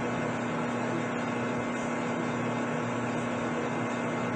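Metal lathe running steadily with a constant hum while a chambering reamer slowly cuts the chamber in a stainless steel rifle barrel. The cut runs smoothly, without chatter.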